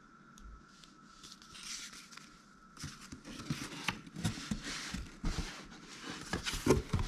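Packaging being unpacked by hand: faint rustling at first, then from about three seconds in, louder crinkling and rustling of paper and plastic with small knocks and clicks.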